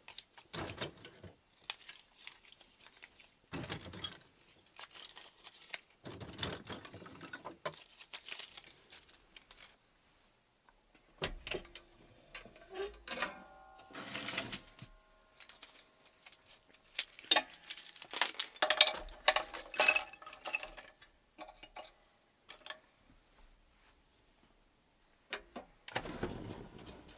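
Irregular clatter and clicks of small objects being handled, in short bursts with quiet gaps. A clink rings on for a moment about 13 seconds in, and the clattering is busiest a little past the middle.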